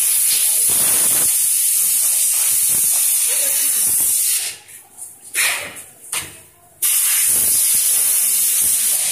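Loud, steady air hiss at a rubber or silicone compression-molding press. It cuts out briefly a few times between about four and a half and seven seconds in.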